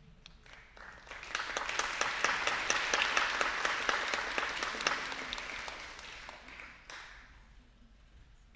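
Audience applauding: the clapping builds up about a second in, holds, and dies away near the end.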